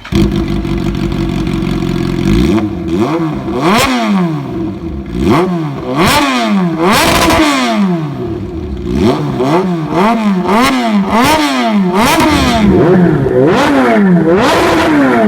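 Kawasaki Z H2's supercharged inline-four running through a slip-on aftermarket exhaust: it idles steadily for about two seconds, then is blipped on the throttle again and again, about a dozen quick revs that rise and drop back.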